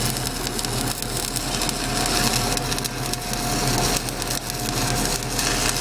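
Stick welding with a 7018 electrode: the arc crackles and sizzles steadily, with many small pops and a steady hum beneath. The arc is held long, which the welder blames for a poor weld.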